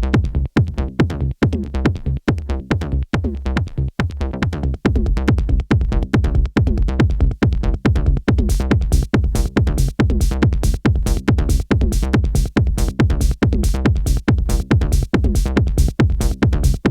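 Techno-style electronic music played live on hardware synthesizers and a groovebox: a steady, pulsing beat over a heavy bass line. Brighter hi-hat-like sounds come in about halfway through.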